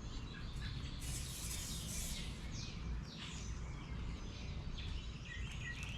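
Birds chirping in repeated short, falling chirps over a steady low rumble of background noise.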